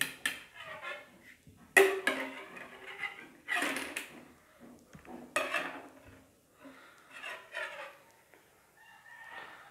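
Thin wire being handled and set against a marker, giving a few irregular light metallic clicks and rattles, the sharpest about two seconds in.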